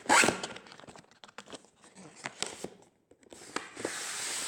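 Keyboard packaging rustling and crinkling as it is handled, with a loud burst of rustle at the start, scattered light clicks and scrapes, and steadier rustling near the end.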